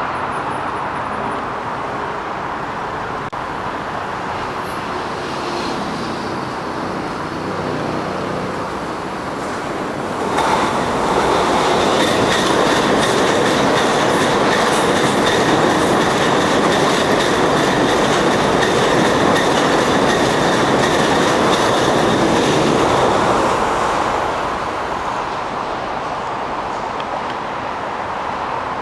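Stockholm commuter train passing close by on an open bridge. The rumble gets much louder about ten seconds in and stays loud for about fourteen seconds as the cars go past, with wheels clicking over the rail joints and a steady high-pitched whine, then fades away.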